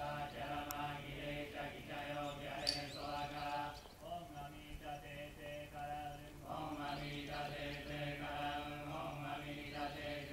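Buddhist monks chanting together in unison, a low steady group chant on long held notes, pausing briefly about four seconds in and taking it up again a couple of seconds later. A single short sharp click cuts through about two and a half seconds in.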